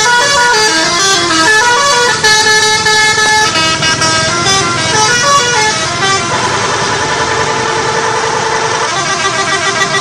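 Bus telolet horn, a set of electric horn trumpets playing a quick tune of short notes stepping up and down, then about six seconds in several tones held together as a warbling chord.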